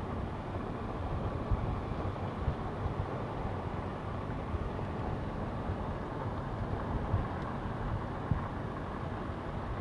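A vehicle driving on a paved road, heard from inside the cab: a steady low rumble of engine and tyres, with a few light bumps.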